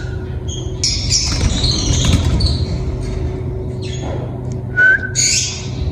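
Caged birds chirping and squawking in short bursts, with a person's short, steady whistle about five seconds in, a call to coax a cockatiel into whistling back.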